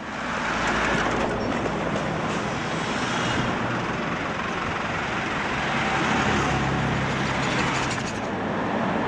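City street traffic: cars and other vehicles passing close by with engines running and tyre noise, steady throughout, with a faint whine near the end.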